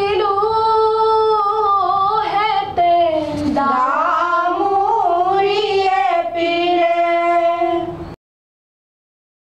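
A high female voice singing a slow melody with long held, gliding notes. It cuts off abruptly about a second before the end into silence.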